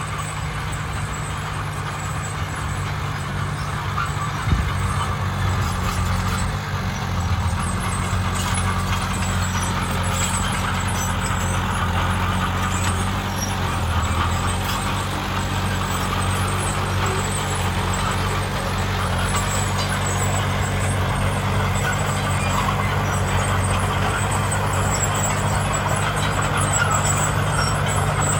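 Heavy diesel engine of earthmoving machinery running steadily under load, with a single sharp knock about four and a half seconds in.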